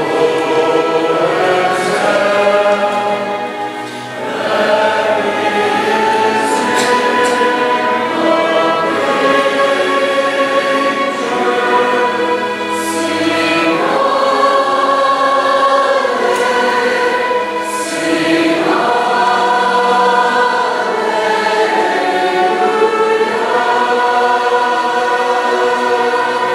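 Mixed choir of men's and women's voices singing in long, sustained phrases, with short breaks between them.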